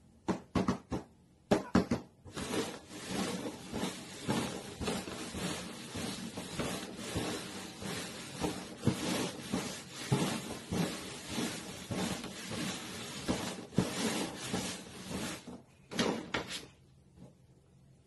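Cups being shuffled and slid quickly over the top of a cardboard box: a fast run of taps and scrapes, with a few separate knocks at the start and again near the end.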